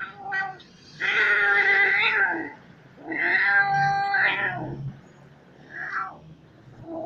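Colorpoint kitten giving drawn-out, wavering growling yowls, two long ones about a second and three seconds in with shorter ones around them: guarding its food from being disturbed while it eats.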